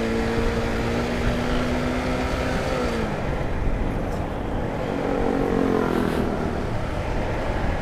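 Honda CBR150R single-cylinder engine running on the move, with wind rushing over the microphone. Its note holds steady, drops away about three seconds in, then rises and falls again briefly around five to six seconds.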